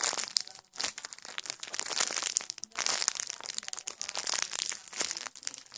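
Plastic packaging crinkling and rustling in irregular, crackly bursts as it is handled, with a couple of brief pauses.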